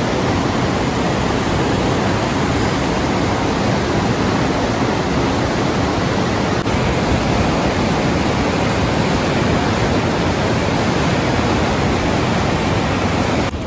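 Parvati River rushing over boulders in whitewater rapids: a loud, steady rush of water.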